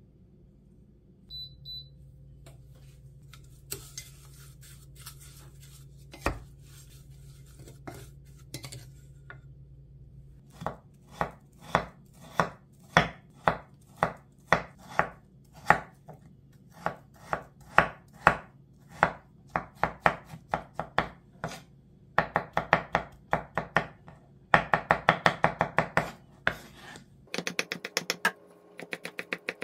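Chef's knife cutting fresh strawberries on a wooden cutting board. A few scattered taps come first, then steady single knife strokes down onto the board about once or twice a second, then a fast run of rapid chopping near the end as the berries are minced small.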